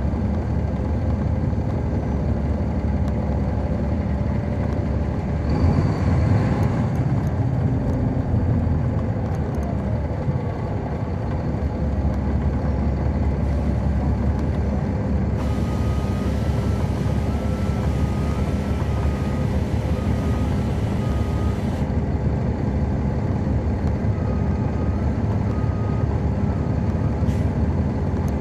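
Caterpillar C13 ACERT inline-six diesel of a NABI 40-SFW transit bus running steadily, heard from on board the bus. A louder rush comes about six seconds in, a hiss runs from about fifteen to twenty-two seconds in, and a faint alternating two-note ticking comes and goes in the middle.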